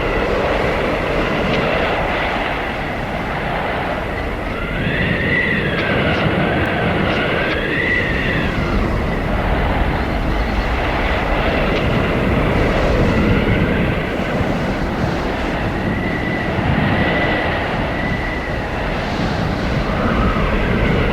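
Blizzard wind blowing hard and steadily, with high whistling howls that rise and fall over the rush, strongest about a third of the way in and again past the middle.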